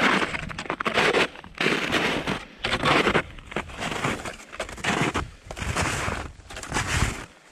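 Footsteps crunching in packed snow, about one step a second at a steady walking pace.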